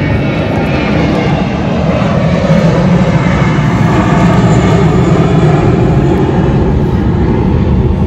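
An aircraft passes low overhead: a loud, steady engine roar that builds over the first three seconds and then holds.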